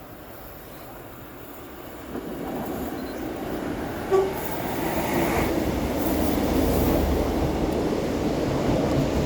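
A Class 150 diesel multiple unit approaching along the track, its engine and wheel noise growing steadily louder. About four seconds in there is a brief, sharp tone over the rising train sound.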